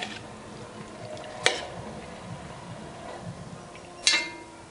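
A metal spoon scraping chopped kidney and gizzard out of a plastic bowl into a stainless steel pot, over a faint frying sound. Two sharp knocks of the spoon against the pot, about a second and a half in and near the end; the second rings briefly.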